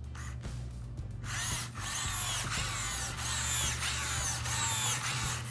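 ClicBot modular robot's motors whining as it drives and moves its joints. The whine starts about a second in and its pitch keeps rising and falling, over a steady low hum.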